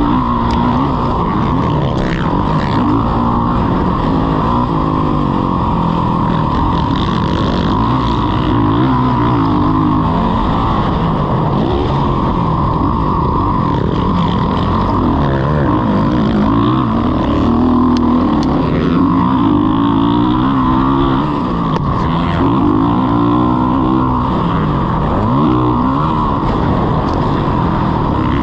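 Motocross dirt bike engine being ridden hard round a track, its revs rising and falling over and over.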